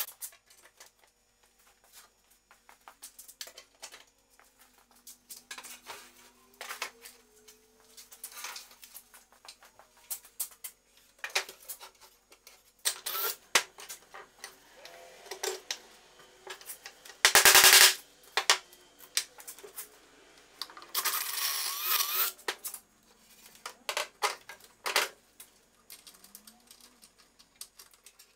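Workshop handling sounds: clicks and clinks of small hardware and tools being picked up and set down, broken by short bursts of a cordless drill boring and driving screws into wood. The loudest burst comes about two-thirds of the way through.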